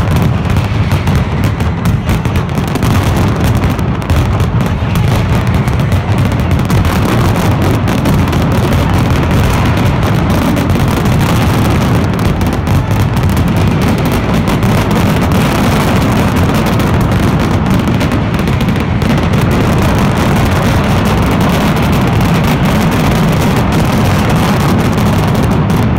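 Mascletà: masclets (large firecrackers) going off so fast that the bangs run together into one continuous, loud, deep rumble.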